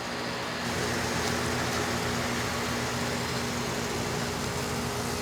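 Running Goodman heat pump outdoor unit: a steady low compressor hum with a few even tones under the rush of the condenser fan, growing louder less than a second in and then holding level. The unit is running quietly.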